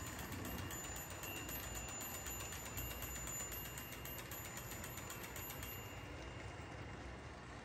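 HO-scale model freight train running on sectional track, led by a Tyco/Mantua Union Pacific GP-20 diesel. Its wheels make a rapid, even clicking over the rail joints, which thins out and fades about six seconds in as the train moves away around the curve.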